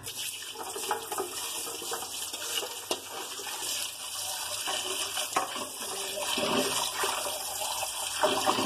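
Tap water pouring into a metal bowl while hands rub and rinse a whole fish in the water. A steady splashing stream runs throughout.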